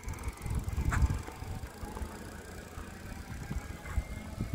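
Uneven low rumbling of wind and handling noise on a moving microphone, with a faint steady whine in the background and a short sharp tick about a second in.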